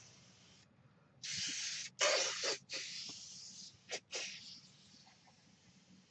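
Preval spray gun hissing in about five short bursts of varying length as it sprays light coats of leather dye.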